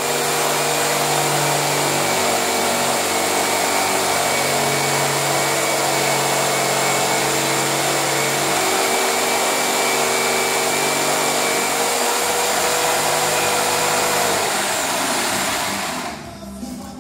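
Electric jigsaw running steadily as its blade cuts a circle through plasterboard (drywall), with a constant motor whine over the sawing noise. The saw stops about a second before the end.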